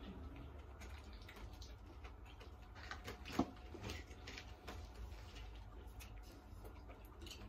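Faint handling noises in a quiet room: a few light clicks and knocks, the loudest about three and a half seconds in, over a low steady hum.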